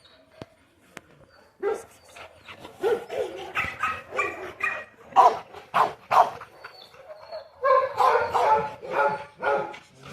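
A dog barking repeatedly in short bursts, starting about one and a half seconds in, with a brief lull about seven seconds in.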